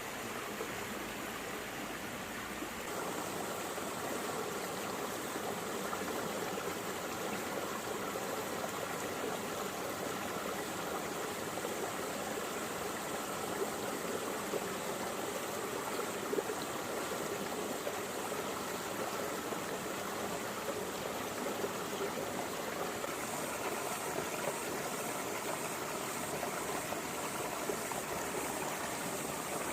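Small stream running over rocks and stones, a steady burbling rush of water whose tone shifts slightly, becoming fuller, about three seconds in.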